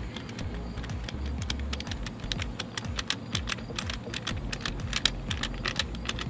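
Rapid, irregular plastic clicking and rattling as an F80 M3 paddle shifter is handled and lined up on the back of a steering wheel, sparse at first and denser from about two seconds in.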